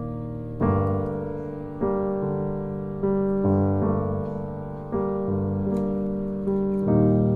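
Background piano music: slow, gentle chords, each struck and left to fade, a new one every second or two.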